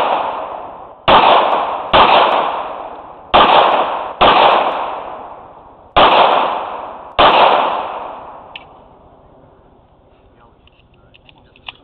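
Pistol shots fired in three pairs, each shot ringing out with a long echoing tail. After the last pair only a few faint clicks and knocks remain.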